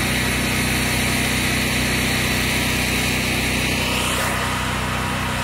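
Generator engine running at a steady speed, a constant low hum.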